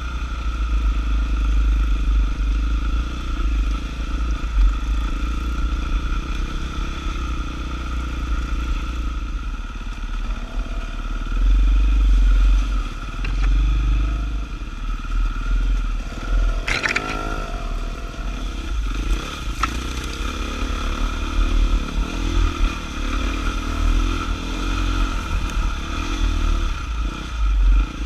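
Dirt bike engine running and pulling along a rough wooded trail, heard from on board, rising and easing with the throttle over a deep steady rumble. A short sharp clatter about two-thirds of the way through.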